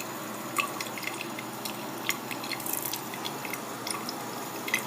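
Water droplets dripping: several small, irregularly spaced drips over a steady background hiss.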